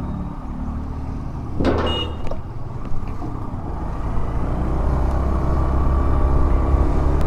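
A motor scooter's engine running, with road noise, as it rides along and gradually gets louder as it picks up speed. A brief sharp sound is heard a little under two seconds in.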